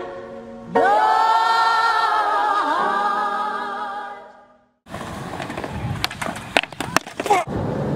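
Sung vocal music holding a long chord, which fades out about halfway through. Then a skateboard rolls on concrete, with several sharp clacks of the board and trucks.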